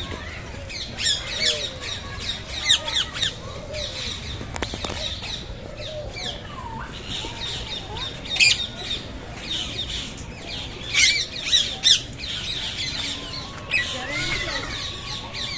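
A crowd of birds squawking and calling in harsh, short bursts, several at once, with the loudest flurries about halfway through and again about three-quarters of the way in.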